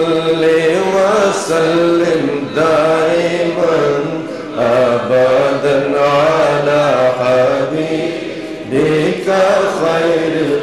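A man chanting an Urdu naat, a devotional poem in praise of the Prophet, in long melodic held lines, with two brief breaths between phrases about halfway through and near the end.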